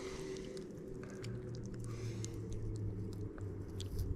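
Distant motorcycle engines droning, a steady low hum that drops slightly in pitch about three seconds in. Over it come faint clicks and squishes of cut bait being worked onto a large catfish hook.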